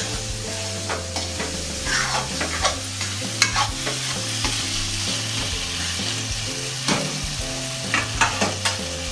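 Chopped tomatoes and masala sizzling as they fry in an aluminium kadhai, with a metal spatula stirring and scraping against the pan in scattered clicks. This is the stage of frying the tomatoes until they break down.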